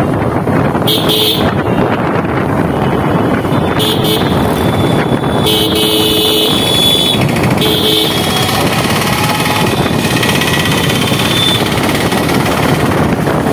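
Wind and engine noise from a motorcycle ride through street traffic, with several short vehicle horn honks, the longest around the middle.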